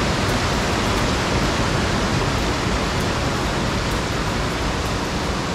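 Loud, steady rush of a river running fast over rocks below a waterfall, the stream swollen with high water.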